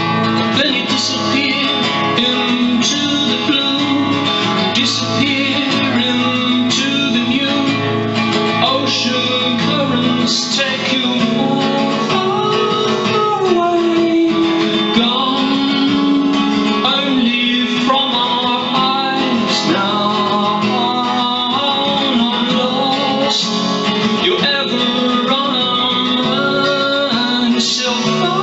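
Instrumental break of a song: an acoustic guitar strummed steadily, with a melody of long held notes that bend in pitch, played on a harmonica in a neck rack.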